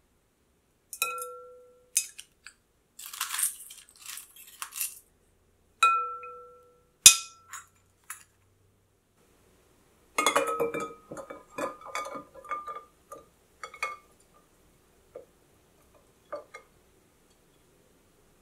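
Ice cubes and a saucepan clinking against a glass bowl of ice water: a couple of ringing clinks from the glass, a noisy rattle, and a sharp knock. About ten seconds in comes a quick run of clinks as the ice knocks against the glass and the pan, thinning to a few light taps.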